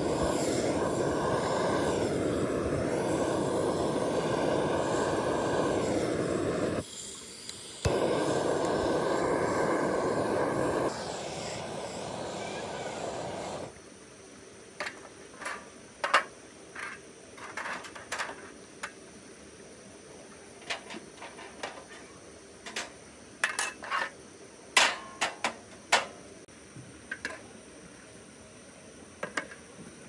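Handheld butane torch blowing its flame onto charcoal briquettes with a steady roar; it stops for about a second and starts again with a sharp click, drops a little in level, then cuts off. After that come scattered clicks and clinks of grill gear being handled.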